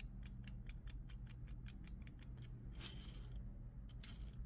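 Nylon ten-ball-bearing garage door roller handled and turned by hand, its low-quality bearings clicking rapidly, about six clicks a second, with two short scraping hisses near the end.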